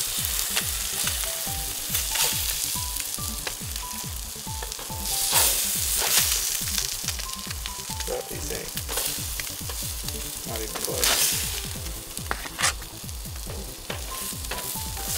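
Fish fillets sizzling on a nonstick copper grill mat over a hot gas grill. A spatula and fork scrape along the mat as pieces are lifted off, with a few louder scraping surges.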